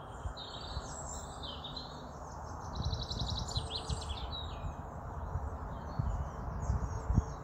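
Small birds chirping and twittering, with a rapid trill about three seconds in, over a low, uneven rumble.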